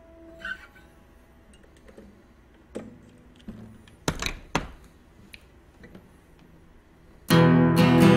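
Acoustic guitar: a chord rings out and fades, then a few faint knocks and clicks in a pause, and strumming starts abruptly and loudly about seven seconds in.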